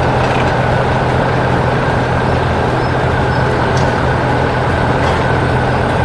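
Heavy construction-vehicle engines running steadily, a continuous low engine noise with no change in speed.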